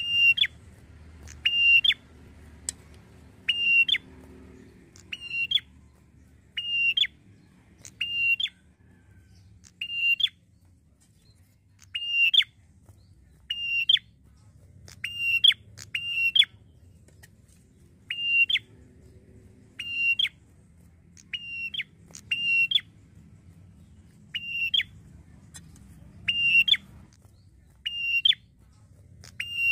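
Red-headed tailorbird (prenjak kepala merah) calling loudly and repeatedly: short, sharp notes with an upward flick, one or two at a time, about every second and a half.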